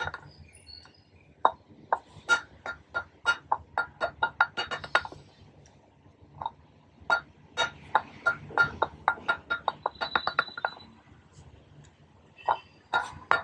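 Trigger spray bottle pumped rapidly in runs: quick clicking squirts, about four or five a second, each with a short plasticky ring and a brief hiss of spray. There are two pauses of about a second, one near the middle and one before the end.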